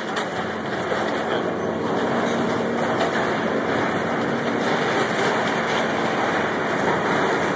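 Hydraulic excavator with a demolition grapple tearing apart a building's metal frame and walls: a dense, steady din of wrenching metal and debris over the machine's engine hum, swelling over the first couple of seconds.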